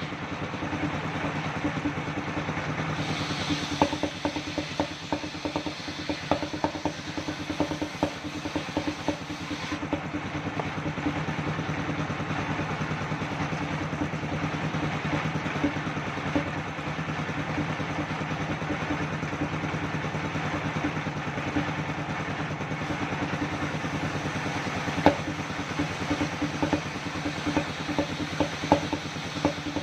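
Engine-driven circular sawmill running at a steady speed, with scattered knocks and clatter from the rig and the log, clustered in the first third and near the end.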